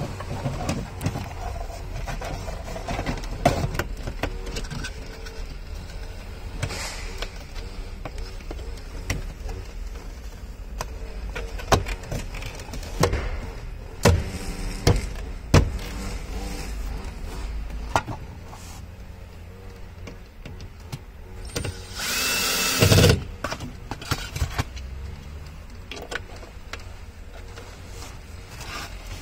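Plastic dashboard trim and wiring connectors being handled and pressed into place under a BMW 135i's dashboard: scattered clicks and knocks over a steady low hum, with a brief loud rushing noise lasting about a second roughly three-quarters of the way in.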